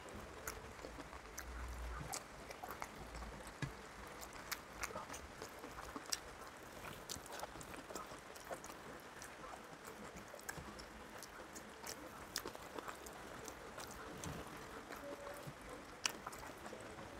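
Close-up eating sounds: a person chewing a mouthful of rice and curry, with irregular wet smacks and sharp clicks. Fingers mixing and picking at food on a steel plate add to the clicks.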